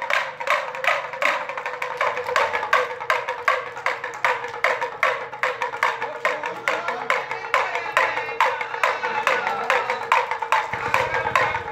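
Damru, a small two-headed pellet drum, rattled by a twisting hand in a fast, even rhythm of about four strikes a second, with a steady ringing tone under the strikes.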